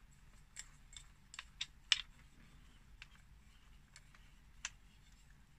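Light plastic clicks and taps from handling a Zhiyun Smooth 4 smartphone gimbal and its clip-on tripod stand: a scatter of irregular faint clicks, most in the first two seconds, a few more later.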